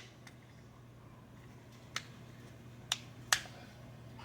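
Three sharp plastic clicks, the last two close together, from the parts of a front-load washer's door lock switch being fitted and snapped back together.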